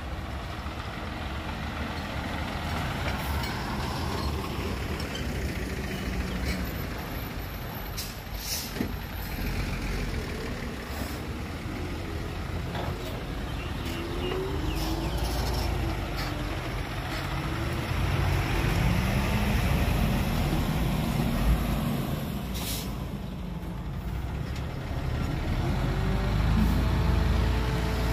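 Diesel engines of loaded Hyundai dump trucks running as they drive by, the engine note rising and falling with the revs and growing louder in the second half. Two short hisses cut through, about a third of the way in and again near the end.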